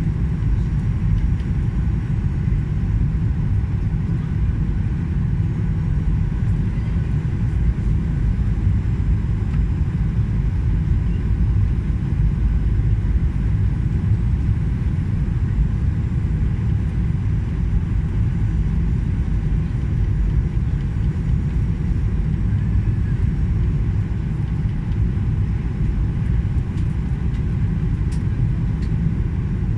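Steady low cabin rumble of an airliner in flight, with engine and airflow noise, during its descent to land.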